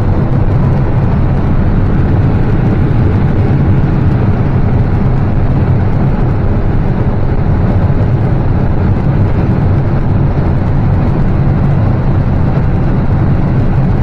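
Combine harvester running steadily while harvesting standing corn: a loud, constant, low machine noise of engine and threshing.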